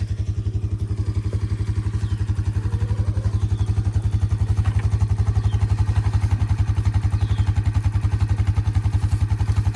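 An engine idling steadily, with a low hum and an even pulsing beat of about eight or nine a second.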